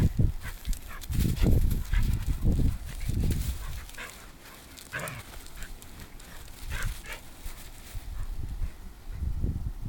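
A Shiba Inu making short, scattered dog sounds, over irregular low thumps and rumbles.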